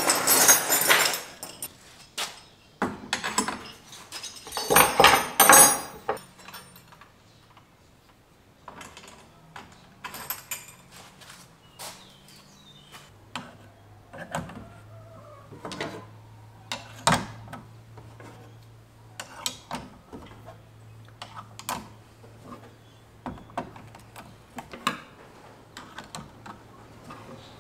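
Hand tools being hung on metal pegboard hooks: scattered clicks and clinks of steel against the hooks and board, with two louder clattering bursts near the start and about five seconds in.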